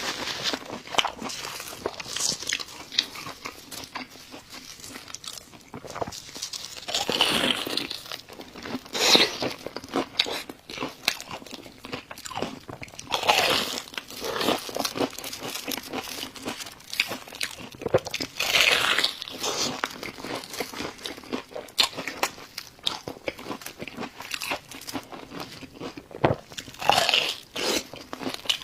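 Close-miked eating: bites of food crunching and chewing, with louder crunches every few seconds.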